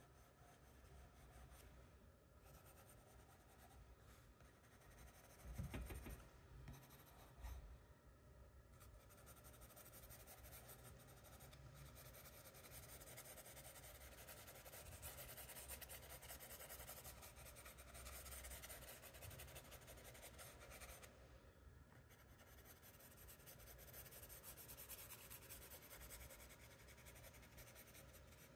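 Faint scratching of a charcoal pencil on sketchbook paper, short strokes laying in shading. A couple of soft low bumps about five and a half and seven and a half seconds in.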